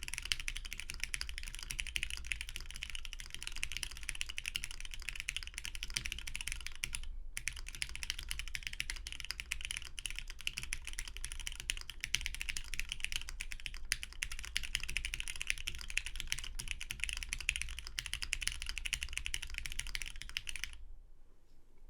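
Custom Praxis mechanical keyboard with lubed Cherry MX Black linear switches, a UHMWPE plate and GMK keycaps, typed on fast and continuously. There is a brief pause about seven seconds in, and the typing stops near the end.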